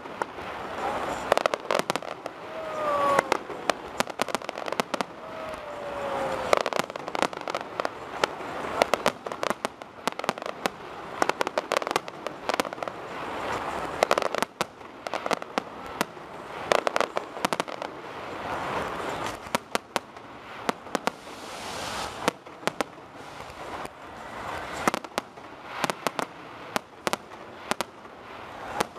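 Aerial firework shells bursting in rapid succession at a fireworks display, sharp bangs one after another over a steady crackle of burning stars.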